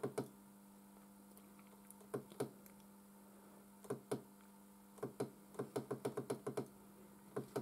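Small push-buttons clicking, in pairs and then a quick run, each press stepping the hour setting of a prototype clock on the frequency counter. A steady low hum runs underneath.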